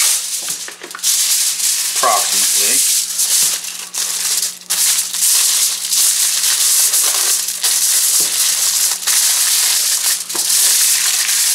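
Aluminium foil crinkling and rustling continuously as a sheet is folded and rolled tightly by hand around an ear of corn.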